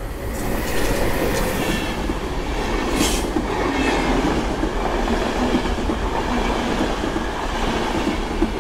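Berlin-Warszawa Express passing close by, an EU44 Husarz electric locomotive followed by intercity coaches. Its wheels make a steady rumble on the rails that swells about a second in as the train draws level.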